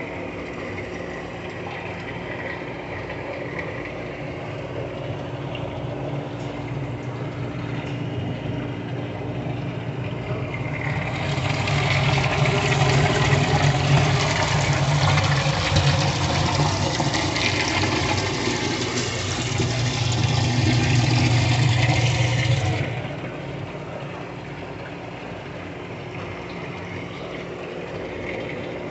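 Live crab and lobster tank: a steady machine hum under running, circulating water. For about twelve seconds in the middle comes a louder rush of splashing, bubbling water that cuts off suddenly.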